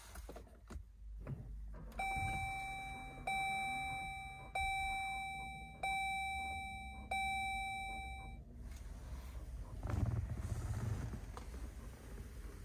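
Chrysler Pacifica Hybrid's dashboard chime sounding five times as the van is switched on, one ding about every one and a quarter seconds, each fading out before the next. A brief low rumble follows about ten seconds in.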